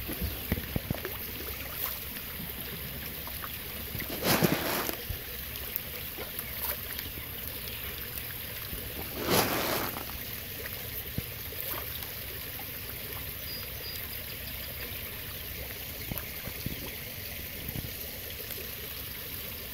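Pond water trickling steadily while a crowd of goldfish and koi jostle at the surface, with small splashes and two louder splashes, about four and nine seconds in.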